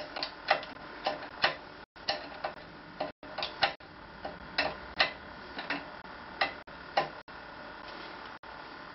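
Irregular sharp metallic clicks and taps, roughly two a second, from fitting a sprung saddle's clamp onto the seat post and working it tight with a hand tool.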